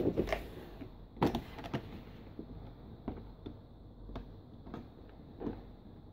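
Large cardboard toy box with a plastic window being picked up and handled: a string of sharp knocks and handling noises, the loudest about a second in.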